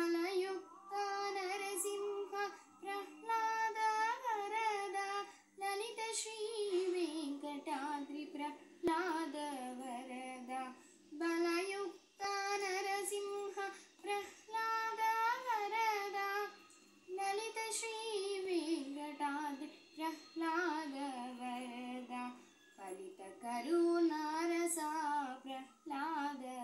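A girl singing solo and unaccompanied: melodic phrases with held, wavering notes, broken by short pauses for breath.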